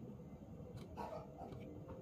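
Faint clicks and taps of hands handling a wooden bird cage, with a short muffled sound about a second in, over a low steady background hum.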